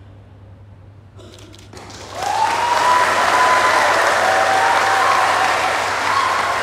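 Audience applause for a choir: a few scattered claps about a second in, then the whole audience clapping steadily, with a few drawn-out cheers over it.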